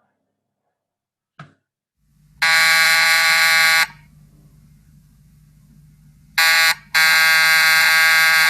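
An electric alarm buzzer sounds in three steady blasts: one of about a second and a half, a brief one, then another long one. A single click comes just before, with a low hum underneath.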